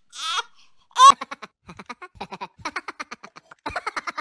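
Baby giggling: a brief falling whimper at the start, then a quick run of short laughs from about a second in.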